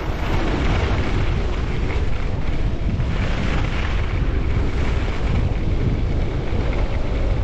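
Wind buffeting the microphone of a skier on a fast downhill run, a steady low rumble over the hiss of skis on snow.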